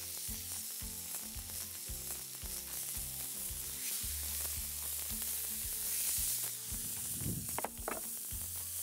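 Wagyu beef burger patties sizzling on a hot greased griddle plate as they are laid down one after another, a steady frying hiss.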